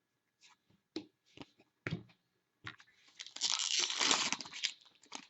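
A few light handling clicks and rustles, then a card pack wrapper torn open for about a second and a half, about three seconds in, the loudest sound.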